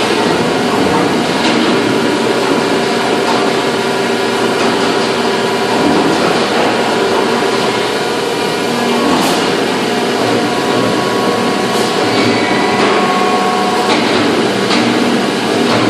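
Factory machinery running with a loud, steady mechanical din full of humming tones, with a few sharp metallic clicks or knocks about halfway through and near the end.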